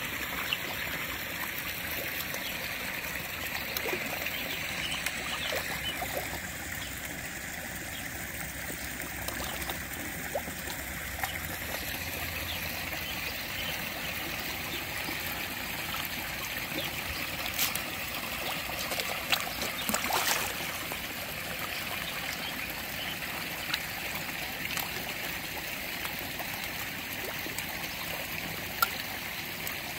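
Koi pond water trickling steadily, with a few brief splashes from koi feeding at the surface.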